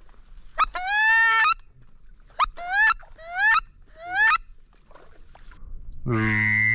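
A series of duck quacks: one longer call just after the start, four short quacks between about two and four and a half seconds in, and a loud, buzzy, drawn-out call near the end.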